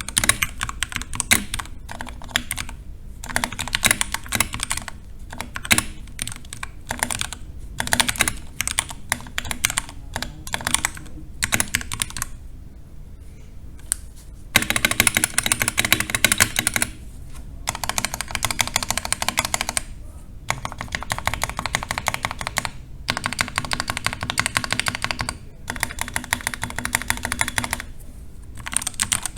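Typing on a 60% custom mechanical keyboard with lubed Tealios V2 linear switches and PBT keycaps, a steady patter of keystrokes. The typing stops for a couple of seconds about twelve seconds in, then comes back in fast dense runs broken by brief gaps.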